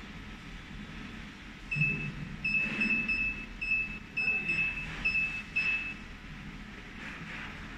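Touchscreen control panel of a planetary centrifugal mixer beeping as its keypad keys are tapped: about nine short, high, single-pitch beeps at uneven intervals over roughly four seconds, over a steady low hum.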